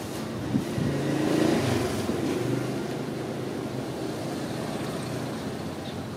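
A motor vehicle's engine running, with a steady low hum that swells about a second and a half in and then slowly fades.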